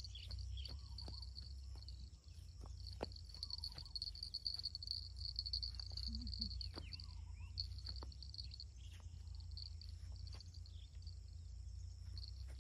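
Field insects chirring steadily in a high, pulsing band, with scattered light crackles of footsteps on dry rice stubble and a low rumble underneath.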